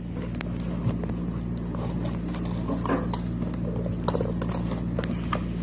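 Scattered light knocks and clicks from handling WPC wall-cladding pieces, over a steady low hum.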